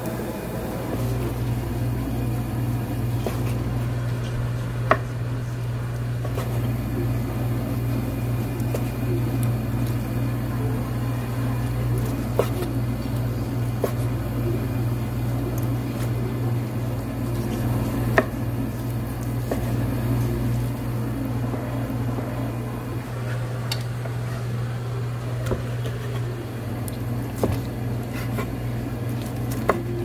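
A large kitchen knife slicing boiled pork on a wooden cutting board, with a few sharp knocks of the blade on the board, over a steady low machine hum.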